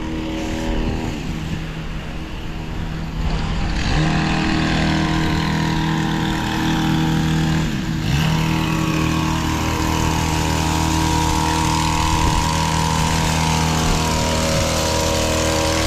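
Vehicle engine running at a steady note while driving, its pitch dipping briefly and recovering twice, about two seconds in and again about eight seconds in.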